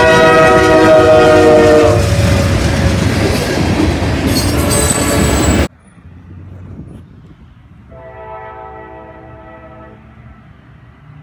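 A diesel freight locomotive passes close by with its air horn blowing a loud chord of several notes. The horn stops about two seconds in and the heavy rumble of the train runs on until it cuts off abruptly. After a quieter stretch, a train horn chord sounds again, fainter, for about two seconds.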